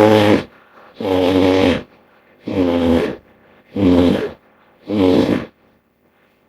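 Hippo-bear hybrid creature sound effect, mixed from hippopotamus and bear calls: a run of deep, pitched calls, about one every second and each under a second long, the later ones shorter.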